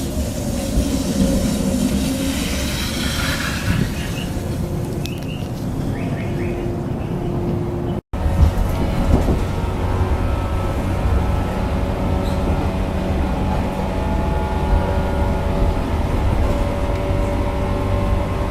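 A train pulling into the platform, its running noise rising and falling. After an abrupt cut about eight seconds in, a train's steady machinery hum with several held tones.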